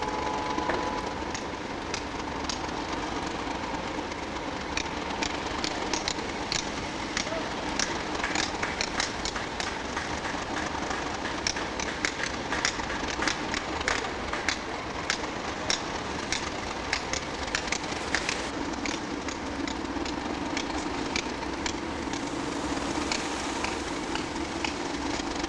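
A pair of British Rail class 37 diesel locomotives running, a steady engine drone under many sharp ticks, with a stronger engine note coming in about two-thirds of the way through.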